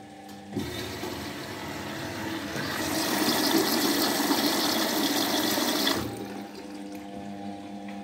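Indesit front-loading washing machine taking in water: the inlet valve opens about half a second in and water sprays through the detergent drawer with a hiss that grows louder, then cuts off suddenly about six seconds in. A steady hum from the machine runs underneath.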